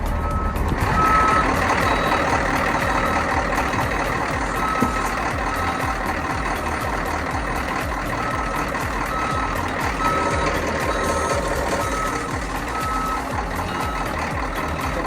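A vehicle's reversing alarm beeping repeatedly over a running truck engine.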